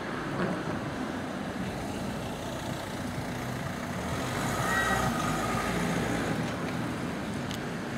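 Road traffic: motor vehicles running and passing close by, loudest about halfway through as a car goes past, with a brief high tone near the loudest moment.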